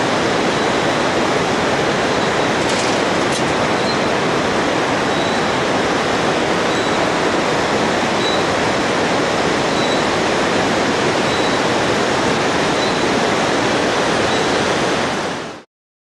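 Steady rushing roar of whitewater river rapids, cutting off suddenly near the end.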